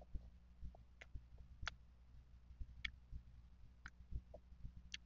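Close-miked chewing of mango slices: faint wet mouth clicks and smacks about once a second, over soft low thumps.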